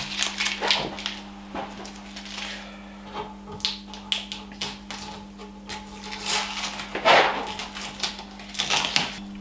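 Painter's tape being peeled off by hand in a series of crackling rips and rustles, the loudest near the middle and toward the end, over a faint steady hum.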